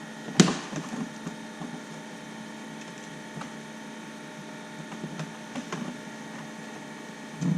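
Plastic interior trim pieces being handled and fitted, with one sharp click about half a second in and a few lighter taps and clicks after it, over a steady low hum.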